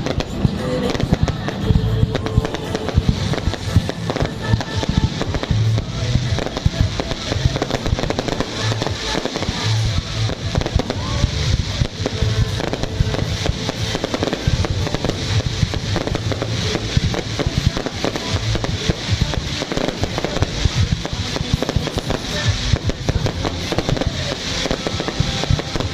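Fireworks going off continuously in a dense run of crackles and bangs, with music playing underneath.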